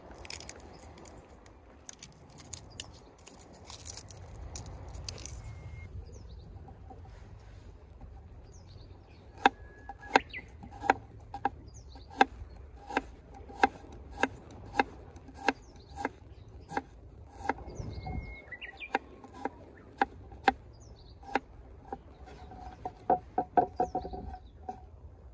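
Knife slicing garlic cloves on a wooden cutting board: sharp taps at a steady pace of about one and a half a second from about ten seconds in, then a quick run of taps near the end.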